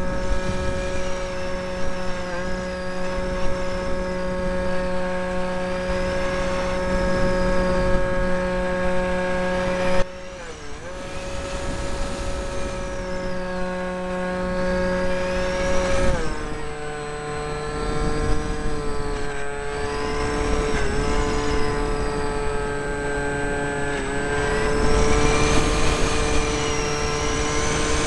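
Electric motor and propeller of an RC mini Cessna whining steadily in flight, picked up close by the camera mounted on the plane. The pitch dips briefly about ten seconds in, then drops to a slightly lower steady note a little after the middle.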